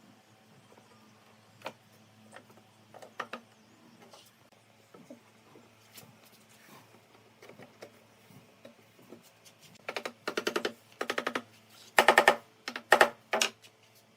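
A handheld power driver, run in five short buzzing bursts from about ten seconds in, as in driving screws into wood. Before that there are only scattered light knocks and clicks of wood being handled.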